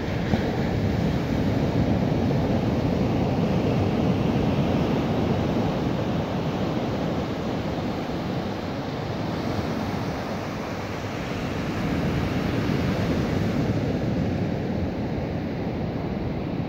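Ocean surf breaking and washing up a sandy beach: a steady rush that swells and eases as the waves come in.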